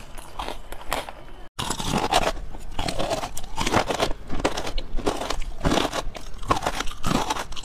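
Close-miked eating sounds: crystal 'ice jelly' candy blocks being bitten and chewed, with a rapid string of crisp crunches. There is a momentary dropout to silence about a second and a half in.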